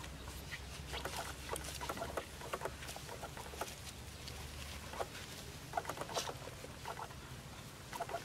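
Towel rubbing a wet puppy's fur: irregular soft wet rustles, dabs and small splashy clicks.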